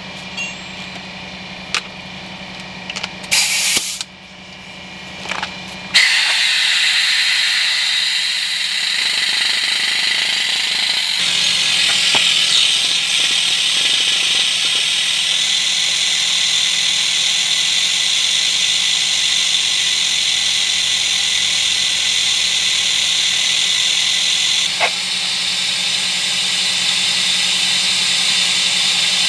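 Snap-on pneumatic vacuum brake bleeder hissing as compressed air runs through it, drawing brake fluid and air out of a rear Brembo caliper's bleed valve. A few clicks and a short burst of air come first, then about six seconds in it runs steadily with a loud, even hiss.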